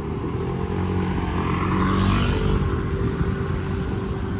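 A motor vehicle with a running engine passing close by. It swells to its loudest about two seconds in, then eases off.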